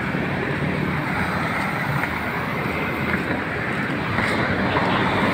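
Steady noise of traffic on a busy city road.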